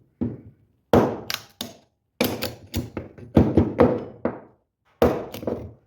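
A tomahawk being tried out with hard blows, giving about a dozen sharp thunks and whacks in quick, irregular succession.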